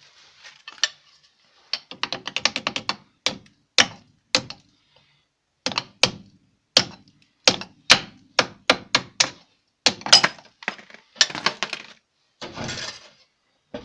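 Metal tool clicking and knocking against the shoe retaining clips of a car's rear drum brake as they are worked off: a long run of sharp clicks and knocks, some in quick flurries, with a short scrape near the end.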